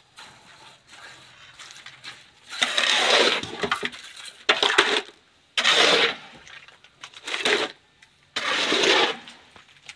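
Wet concrete mix being tipped from a metal pan and scraped into wooden stair-step formwork: about five gritty scraping bursts, each lasting up to a second.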